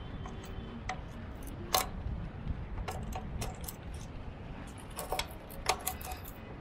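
Scattered light metallic clicks and taps from a metal hand tool working the mounting fasteners of a generator's carburetor as it is tightened down.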